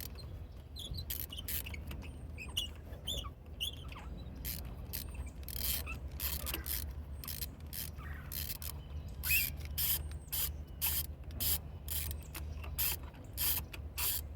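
Ratchet clicking as a spark plug is turned out of the cylinder head: irregular clicks at first, settling to about two a second from about nine seconds in. A few short high squeaks come early on.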